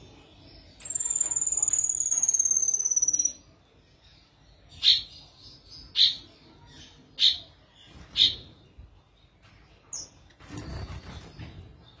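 Caged finches calling: a long, thin, high whistle slowly falling in pitch for about two and a half seconds, then four loud short calls about a second apart.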